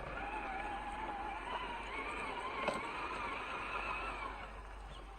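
Traxxas TRX-6 RC crawler's electric motor and drivetrain whining, the pitch wavering up and down with the throttle, with one sharp click about two and a half seconds in.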